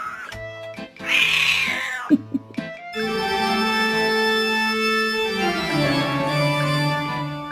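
Music: sustained organ chords start about three seconds in and slide down in pitch near six seconds. Before that, a short burst of hissing noise about a second in.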